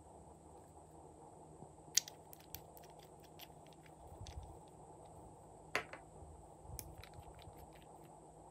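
Small glass nail polish bottles and their plastic caps clicking and tapping as they are handled and a cap is pulled off: a handful of sharp, faint clicks, two of them louder, about two seconds in and just past the middle, over a faint steady hiss.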